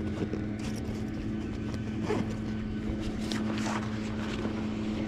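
A motor running steadily with a constant low hum, and scattered light clicks over it.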